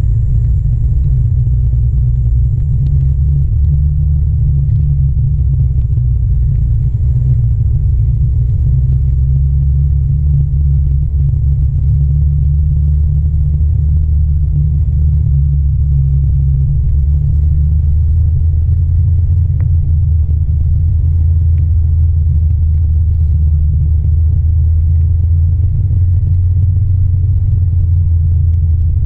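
Steady low rumble of a OneWheel rolling along an asphalt path, picked up by a camera mounted on the board itself.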